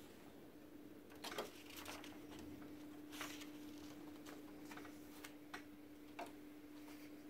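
Phillips screwdriver driving a screw into a laser printer's rear frame: a dozen or so soft, irregular clicks and scrapes of the tip turning in the screw head, over a faint steady hum.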